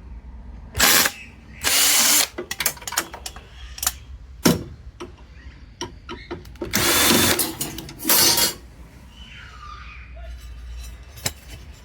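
Cordless drill run in four short bursts, backing screws out of the water heater's sheet-metal casing, with small metal clicks and clinks between the bursts and a sharp knock about halfway through.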